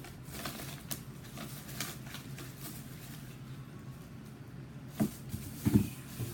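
Hands handling small items from a package: light rustles and scattered clicks over a low steady hum, with two louder thumps about five seconds in.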